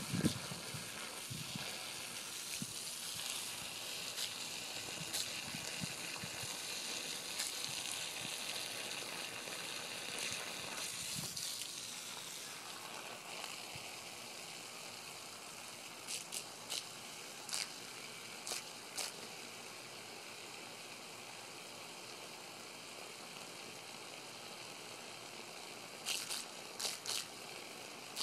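Garden hose spraying a stream of water onto a lawn: a steady hiss and patter of water, a little louder in the first half. Several short clicks come in the second half.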